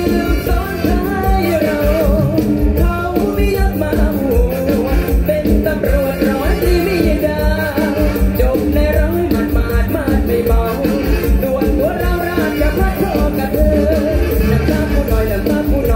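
Live Isan mor lam band music at concert volume, with a steady driving drum beat under a wavering lead melody.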